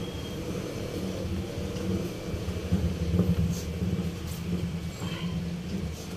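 Steady low rumble of a running engine, swelling slightly now and then.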